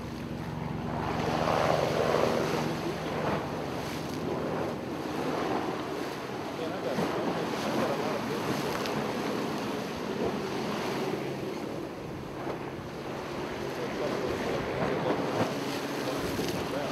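Ocean waves washing against the shore in slow swells, with wind buffeting the microphone. A faint steady hum runs underneath.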